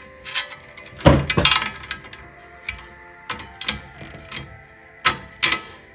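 Metal hardware clinking and knocking as a bolt, nut and steel bracket are handled and fitted onto a push reel mower's side plate. There are a handful of sharp knocks, the loudest about a second in and again near the end.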